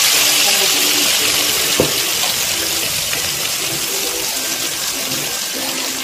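Masala-marinated whole fish deep-frying in hot oil: a loud, steady sizzle that eases slightly over the seconds, with one light knock about two seconds in.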